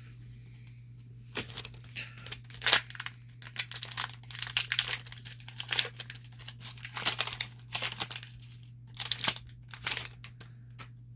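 Foil trading-card pack being torn open and crinkled by hand: irregular crackling and tearing from about a second in until near the end, over a steady low electrical hum.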